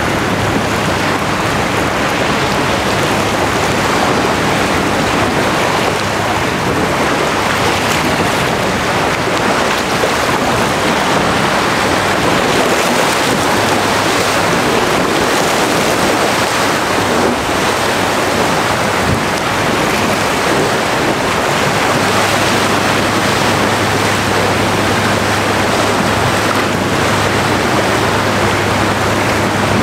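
Steady rush of waves and wind noise on the microphone by the water, with a low steady hum that fades for a while in the middle and returns near the end.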